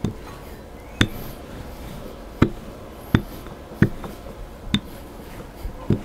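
Wooden rolling pin knocking against a bamboo cutting board as yeast dough is rolled out: seven sharp wooden knocks at uneven intervals.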